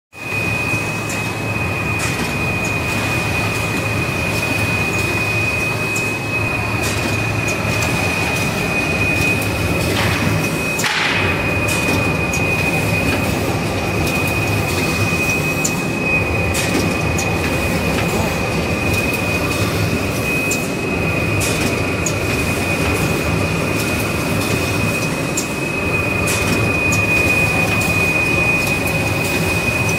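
Fully automatic toilet-roll and kitchen-towel packing machine running: a steady mechanical clatter with a constant high-pitched whine and scattered sharp clicks, and a short burst of noise about ten seconds in.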